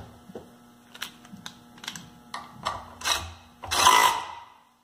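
Clicks and light clatter of tools and metal parts being handled, then a cordless DeWalt driver with a 9/16 socket runs in two short loud bursts about three and four seconds in, tightening the bolt that fastens the generator's handle.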